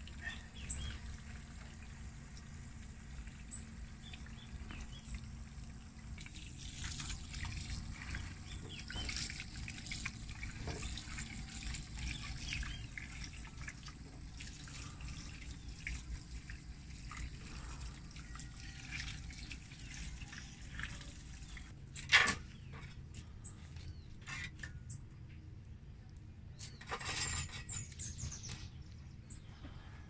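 Tap water running and trickling into a stainless steel sink full of oranges, with scattered light knocks as the wet fruit is handled. One sharp, loud knock about two-thirds of the way through.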